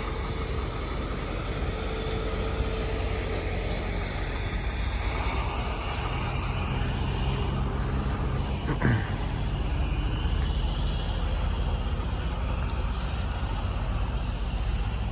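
Heavy diesel truck engine running steadily, a deep low drone under a wash of yard noise, with a brief falling squeal about nine seconds in.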